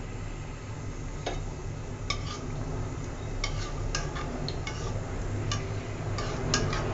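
Metal spatula stirring whole spices in hot oil, clinking and scraping against an aluminium pot in a series of sharp clinks that start about a second in, over a steady low hum.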